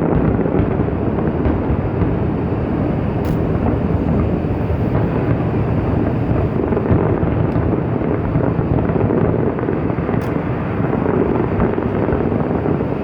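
Large aerial fireworks display: many shells bursting so closely together that they blend into a continuous loud rumble.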